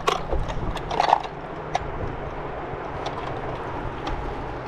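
Steady outdoor wind-and-water noise with a constant low rumble, broken by a few sharp clicks and knocks in the first second or so.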